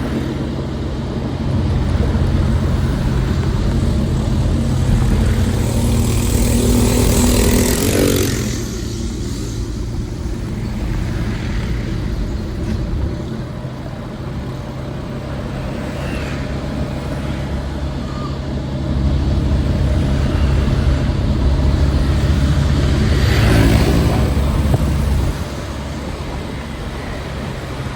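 City street traffic: a steady low engine rumble, with a vehicle passing close by about a quarter of the way in and another near the end.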